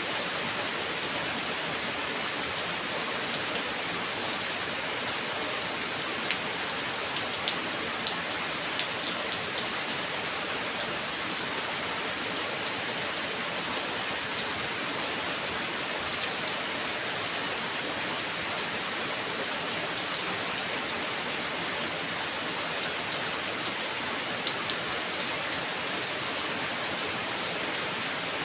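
Heavy rain falling steadily, an even dense hiss with the odd louder drop striking a surface.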